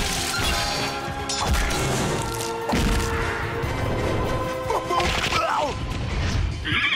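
Background score with cartoon fight effects: several smashes and whacks from a brawl. Near the end a horse whinny begins.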